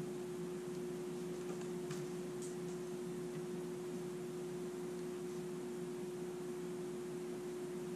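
A steady hum held at one pitch over a low hiss, with a few faint clicks about two seconds in.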